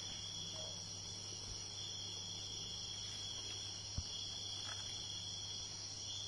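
Steady high-pitched chorus of crickets, unbroken, over a low hum, with one faint tap about four seconds in.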